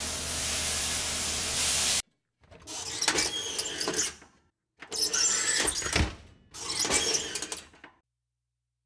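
Capelin sizzling on a hot ridged grill pan, a steady hiss that cuts off sharply about two seconds in. Then come three short bursts of hissing noise with sharp clicks and clatters, each about a second and a half long.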